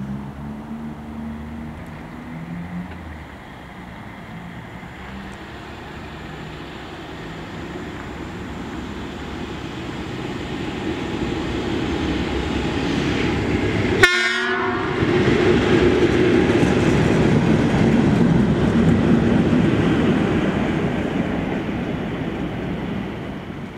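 Colas Rail Class 37 diesel locomotive approaching and running through the station, its engine and wheels building steadily to a loud pass and then fading away. A distant horn sounds at the start, and there is a sharp click about halfway through as it reaches the microphone.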